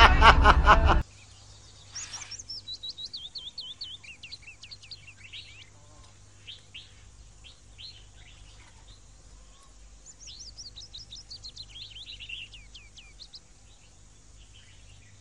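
A man laughing loudly, cut off suddenly about a second in, then songbirds chirping: two quick runs of falling chirps a few seconds each, with scattered single chirps between.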